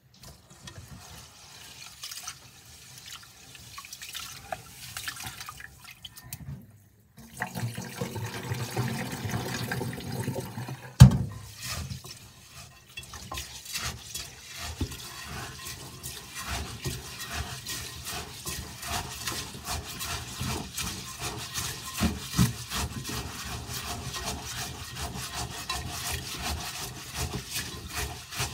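Rice being washed by hand in a rice cooker's inner pot: water sloshing, then wet rice grains rubbed and scrubbed against the pot in a quick, steady rasping. A single sharp knock comes about eleven seconds in.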